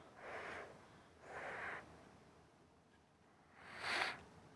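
Three short, faint puffs of breath, each about half a second, the last one the strongest.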